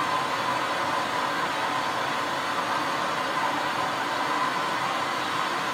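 MAP gas hand torch burning steadily with its trigger held open: a continuous, even flame hiss, heating a piece of metal to orange heat for hardening.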